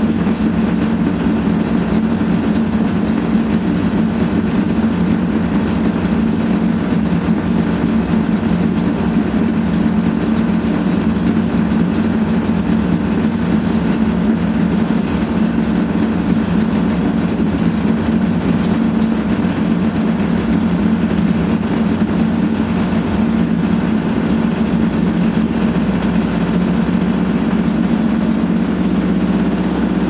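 Hotpoint Aquarius WMA58 washing machine on its spin cycle, the drum turning with a loud, steady low drone: the sound of very bad drum bearings.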